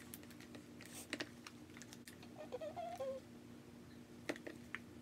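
Faint scattered clicks and taps of a spoon against a plastic tub as thick, clumpy lip gloss base is stirred. A brief wavering pitched sound comes near the middle.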